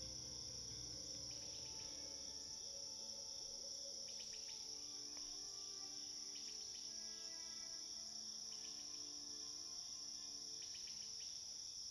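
Faint, steady, high-pitched chorus of chirping crickets, with a few short chirps about four seconds in and again near the end.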